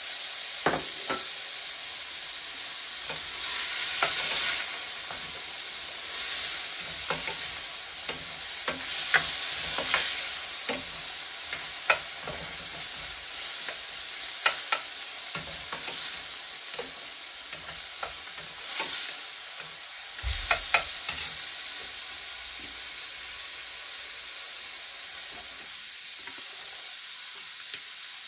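Mixed vegetables and grape tomatoes sizzling in olive oil in a stainless steel skillet, stirred with a spatula that clacks and scrapes against the pan again and again. A dull thump about twenty seconds in.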